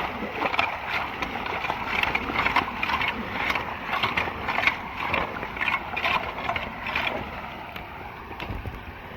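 Rhythmic splashing in shallow street floodwater, about two splashes a second, over a steady wash of running water; the splashing stops about seven seconds in.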